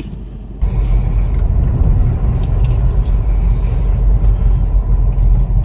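Car driving, heard from inside the cabin: a steady low rumble of engine and road noise that comes in abruptly about half a second in.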